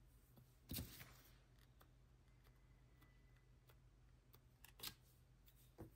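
Near silence with faint handling of nail-stamping tools on a metal stamping plate: a short scrape about a second in and a couple of soft clicks near the end.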